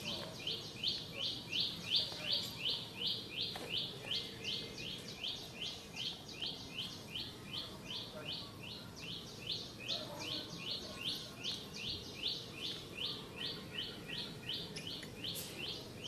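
A high chirping call repeated evenly, about three times a second, from a calling animal in the surrounding vegetation, over faint outdoor background noise.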